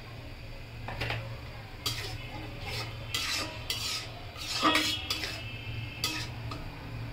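Long metal spatula stirring and scraping a thick prawn curry against the sides of a metal wok, in a run of uneven strokes about once a second, the loudest about five seconds in.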